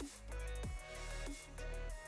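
Background electronic music with a heavy, repeating bass beat and sliding bass drops.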